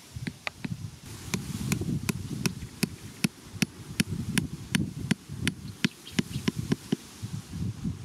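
The back of a hatchet tapping a small wooden peg into hard dirt: quick sharp taps, about two or three a second, stopping near the end.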